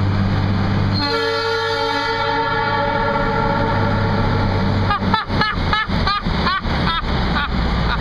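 Two horns of a Nathan triple-tone air train horn sounding one steady held chord inside a road tunnel. It starts about a second in and lasts about four seconds.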